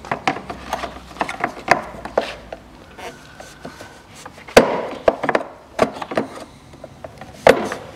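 Irregular clicks and knocks of pliers against metal parts being handled, with two louder knocks about four and a half and seven and a half seconds in.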